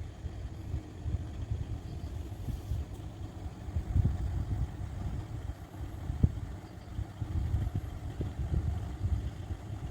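A 10-inch Sunfire True Subwoofer playing deep bass: an uneven low rumble with short thumps now and then.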